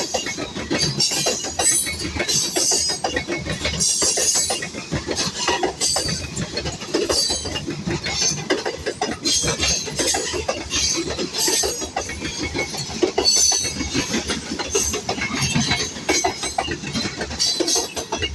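A grain train rolling past, with the steel wheels of its freight cars clattering steadily over the rails and brief high-pitched squeals coming and going.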